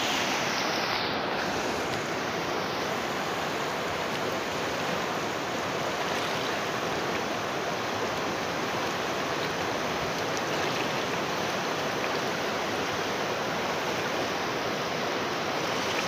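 Fast-flowing river rapids rushing steadily, an even wash of white-water noise.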